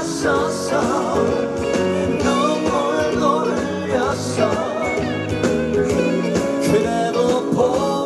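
A singer singing a song with instrumental accompaniment, the voice gliding between and holding notes.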